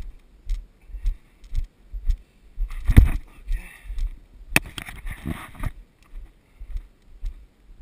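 Footsteps on a dirt trail strewn with dry leaves, about two steps a second, with leaves crunching and rustling underfoot; the loudest crunch comes about three seconds in.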